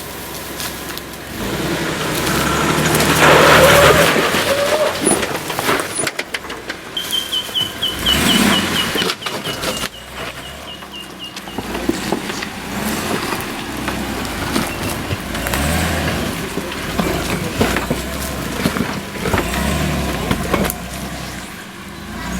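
A four-wheel-drive's engine working unevenly in surges as the vehicle crawls up a rocky off-road climb, loudest a few seconds in. A thin high repeated chirping sounds for a few seconds in the middle.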